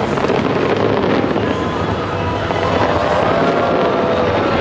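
Large aerial fireworks display crackling densely and without a break, over a steady low rumble, with a few faint gliding whistles.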